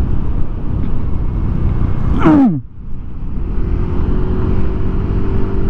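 Motorcycle ride with wind rushing over the microphone and engine rumble. About two seconds in, a quick falling whine drops sharply; the noise briefly eases, then a steadier engine hum with wind carries on.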